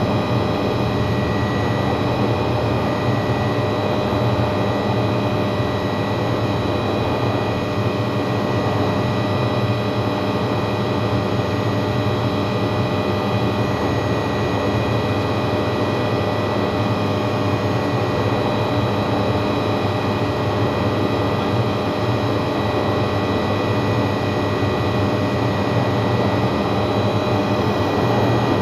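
MD500E helicopter with its Rolls-Royce 250-C20B turbine engine and rotor running steadily at flight power, heard from inside the cockpit while hovering low: a constant high whine over a dense low rumble.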